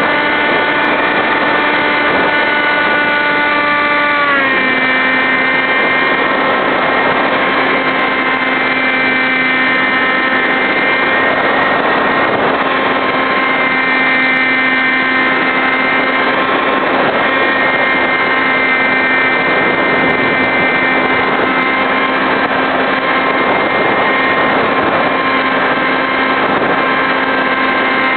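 Electric motor and propeller of a Skysurfer RC model plane running steadily in flight, a constant whine over a rush of air. The whine steps down slightly in pitch about four seconds in, then holds.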